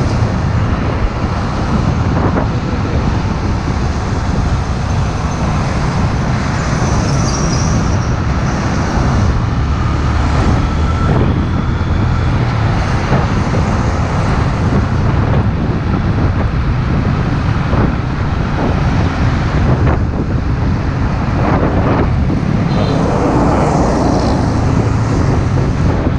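Steady road and traffic noise heard from a moving motorcycle riding behind a heavily loaded truck with trailer: a continuous low engine and road rumble with no breaks.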